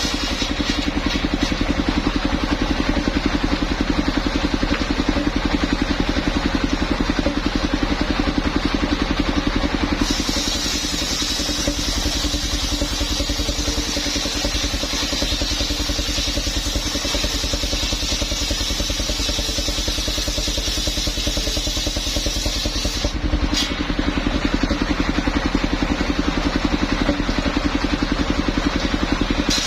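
Engine of a mobile circular sawmill running steadily. A harsher, hissing high sound joins it for a long stretch in the middle and stops abruptly, typical of the saw blade cutting through the coconut trunk.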